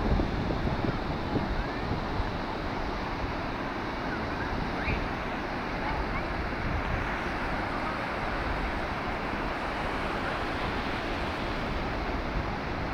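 Steady wash of ocean surf on a sandy beach, with wind buffeting the microphone.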